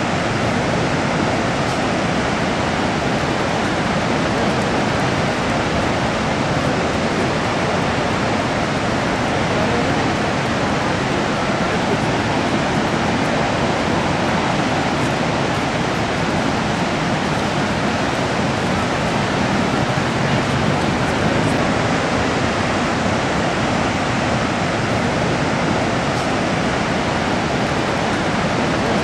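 Niagara Falls' falling and churning water making a loud, steady rushing noise without a break.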